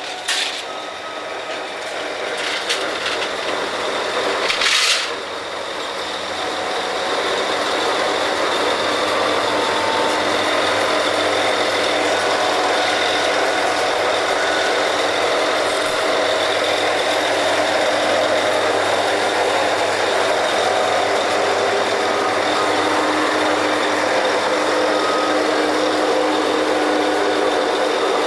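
A rotary drilling rig's engines and machinery running as it resumes drilling after a pipe connection, a steady mechanical din with a few held tones. A short air hiss comes about five seconds in, and the noise then builds up over the next couple of seconds and stays loud.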